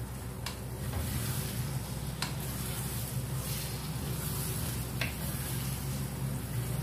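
Wooden spatula stirring egg curry in a nonstick karahi, the onion-tomato masala sizzling. There are three light knocks of the spatula against the pan, and a steady low hum runs underneath.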